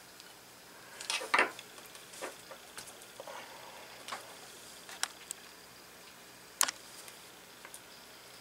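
Scattered light clicks and small knocks of a model glow engine's metal parts and tools being handled during disassembly, about half a dozen irregularly spaced, the loudest just over a second in and about six and a half seconds in.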